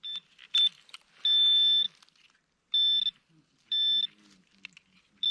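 Metal detector beeping over a buried target in a dug hole: a string of high, steady beeps, a few short and several about half a second long, with a few scratching clicks of digging between them.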